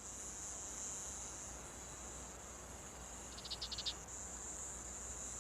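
Steady high-pitched trill of crickets or similar insects in a meadow, with a short run of quick chirps about three and a half seconds in.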